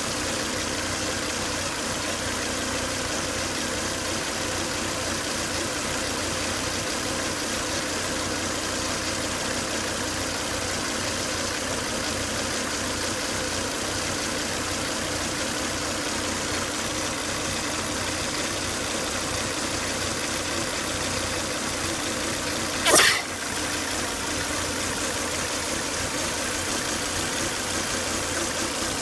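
Volvo S80 2.5T's turbocharged five-cylinder engine idling steadily, with one short loud burst of noise near the end.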